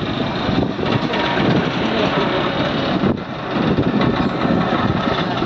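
Heavy-haul truck engine running steadily as the multi-axle trailer carries its load, with a brief dip in level about three seconds in.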